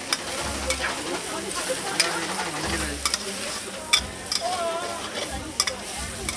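Noodles and vegetables stir-frying in a hot wok: steady sizzling, with a metal spatula scraping and clanking against the wok every second or so.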